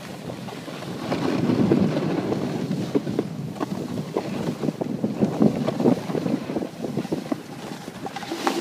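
Skis scraping and chattering over firm, packed snow in a continuous rough rush with small ticks, mixed with wind buffeting the microphone; it grows louder about a second in.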